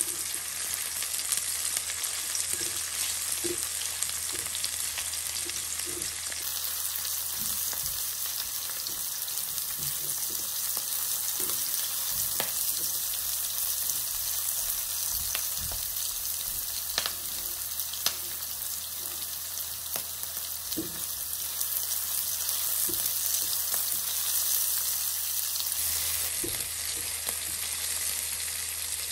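Diced red onions sizzling in hot oil in a nonstick wok, steadily hissing, while a silicone spatula stirs them with occasional light scrapes and taps against the pan.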